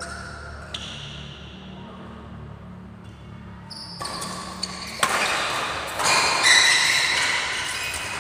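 Badminton doubles rally in an echoing hall: sharp racket strikes on the shuttlecock a few seconds apart, the loudest about five seconds in, followed by a louder, busier stretch of play.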